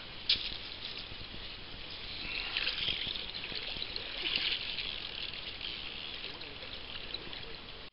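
River water running steadily, an even rushing hiss that swells a little around the middle, with one sharp click shortly after the start.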